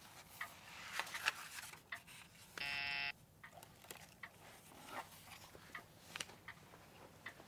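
A desk intercom buzzer sounds once, a steady buzz about half a second long near three seconds in, among faint clicks and rustles of handling.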